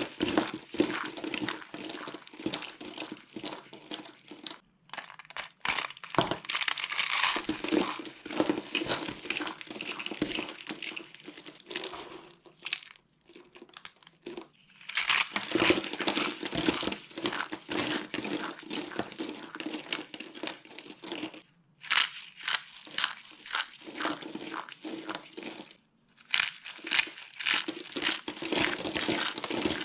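Dry soap being crushed by hand, crunching and crumbling in dense runs of crackling separated by a few brief pauses.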